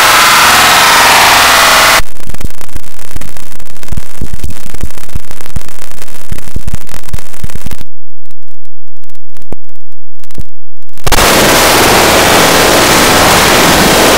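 Heavily distorted, clipped audio at maximum loudness: harsh noise, changing about two seconds in to a crackle of dense pops and low thumps that thins out near the middle, then back to harsh noise about eleven seconds in.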